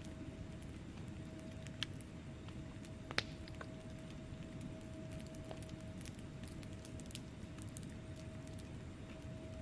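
Wood fire burning in a fireplace: a low steady rumble of flames with scattered small crackles from the logs, and two louder pops about two and three seconds in. A faint steady hum runs underneath.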